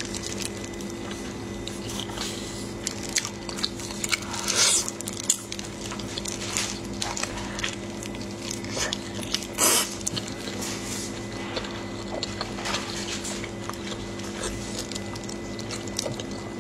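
Wet squishing, sticky smacking and tearing as sauce-coated meat is pulled apart with plastic-gloved hands and bitten and chewed, with scattered clicks and a couple of louder smacks. A steady low hum runs underneath.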